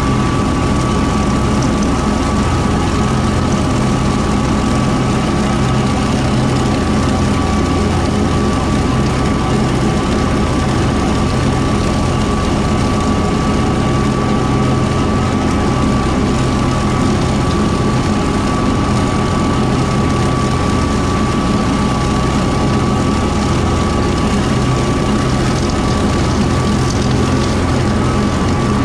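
Kubota M4-071D tractor's diesel engine running steadily while driving a Woods BW12 batwing rotary mower, with a steady high whine running through it.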